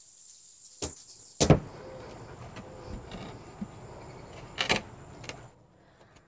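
Knocks and thumps of large planters being handled and set down, the loudest about one and a half seconds in and two more near the end.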